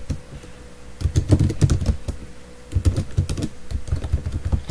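Typing on a computer keyboard, entering commands, in two quick runs of keystrokes: one about a second in and a longer one from about three seconds.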